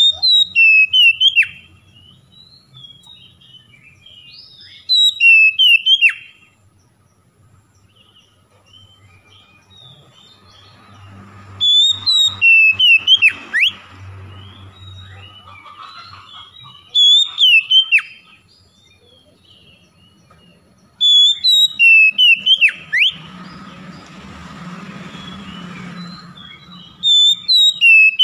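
Oriental magpie-robin singing: loud phrases of clear whistles with sharp downward-sliding notes, repeated six times every four to six seconds, with softer chattering notes in between.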